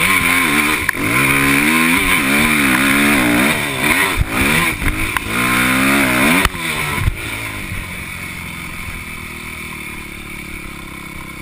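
Yamaha dirt bike engine revving up and down hard under throttle, with a couple of sharp knocks. About seven seconds in the throttle shuts off and the engine drops to a lower, quieter, steady run as the bike slows.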